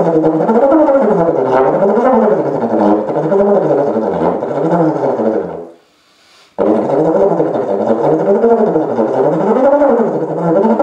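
Trombone played in a winding, snake-charmer-style line, its pitch sliding smoothly up and down with the slide about once a second. It breaks off for a breath a little past halfway, then carries on.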